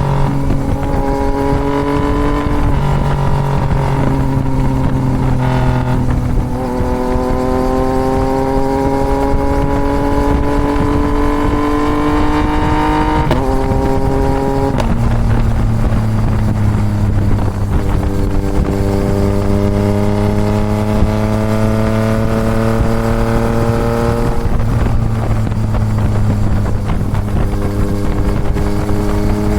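Yamaha MT-09 three-cylinder engine with a full Toce exhaust pulling at moderate revs, its pitch creeping slowly up and then jumping with each of several gear changes.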